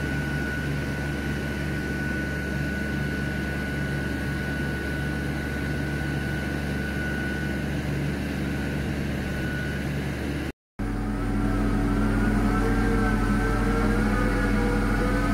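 Hydraulic puller-tensioner stringing equipment running under test: a steady engine drone with a constant high whine. After a cut about two-thirds of the way in, it is louder, with a wavering hydraulic whine over the engine.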